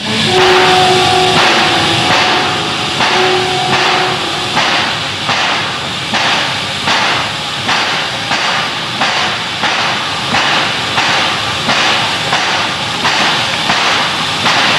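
Steam locomotive chuffing and hissing, with even beats a little more than one a second. A steady whistle tone sounds over it for the first four seconds.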